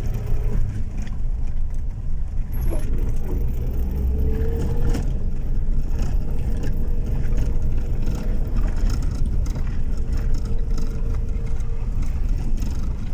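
Inside a car's cabin while driving slowly over a rough dirt road: a steady low rumble of engine and tyres on the broken surface, with scattered light knocks and rattles.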